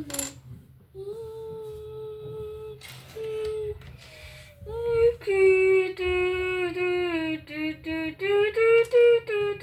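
A child singing and humming without words. First comes one long held note, then a short one, then, about five seconds in, a louder wavering tune of drawn-out notes.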